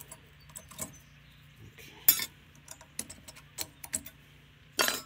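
Sharp metallic clicks and clinks as brake pads and steel pad clips are worked loose in a caliper bracket held in a bench vise. The loudest clinks come about two seconds in and near the end.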